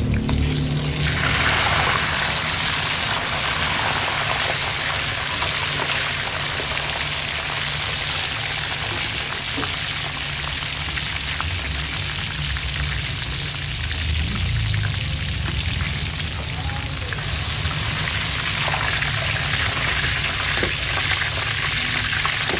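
Breaded squid rings deep-frying in hot oil: a steady sizzle of bubbling oil.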